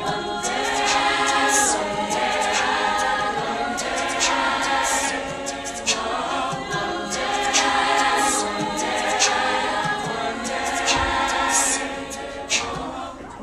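Mixed choir singing, with a male soloist at the microphone, fading down near the end.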